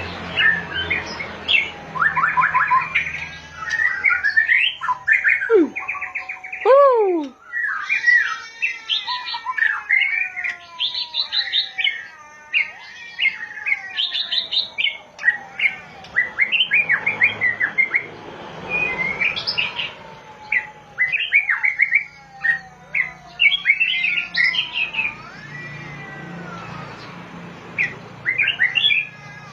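Songbird, the bird called binla (บินหลา) in Thai, singing a long, varied song of rapid whistled notes, trills and sweeping slurred phrases with almost no pause. A low hum sits beneath it at the start and again near the end.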